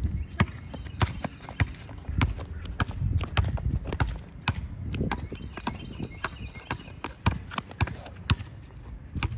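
A basketball bouncing on a hard surface: sharp thuds about twice a second in an uneven rhythm.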